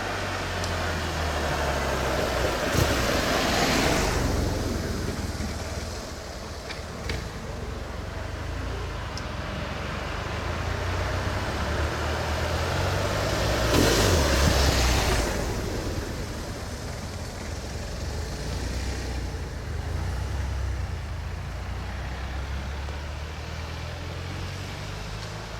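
Road traffic: a steady low engine hum with two vehicles swelling past, one a few seconds in and one about halfway through, and a couple of faint clicks between them.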